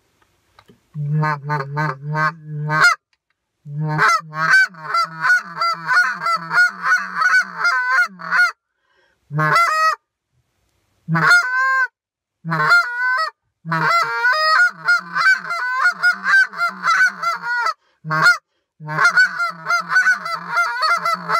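Homemade Canada goose (honker) call with a shaved-down light reed and a 7/8-inch mouthpiece, blown in a series of honks and quick runs of clucks, each note breaking from a low tone to a high one. It sounds kind of raspy and a little too easy to run through the notes, a sign that the reed is too light and the call should be tuned higher and stiffened.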